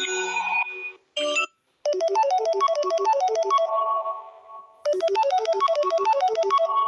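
Phone ringtone: a quick synthesized keyboard-like melody that plays, fades out and starts over about three seconds later, after the tail of a previous tone and a brief snippet at the start.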